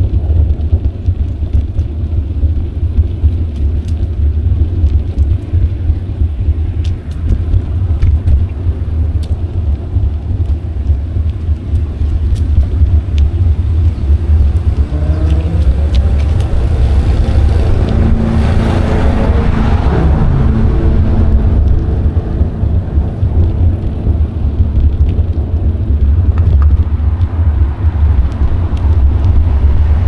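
Steady low wind rumble on an action camera's microphone while cycling. About halfway through, a motor vehicle passes: its engine sound builds, peaks, then fades away.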